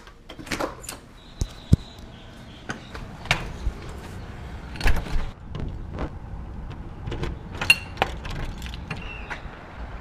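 A front door being gone through: irregular clicks, knocks and rattles of keys and the door's deadbolt and handle, with a few louder thumps as the door is worked, then steps outside.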